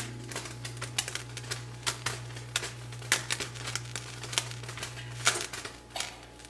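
Bacon strips crackling and popping irregularly in a hot frying pan as they are laid in, over a light sizzle and a steady low hum.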